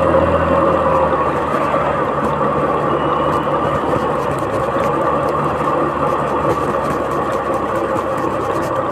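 Two-wheeler's engine running steadily while riding along a street, mixed with wind and road noise on the microphone.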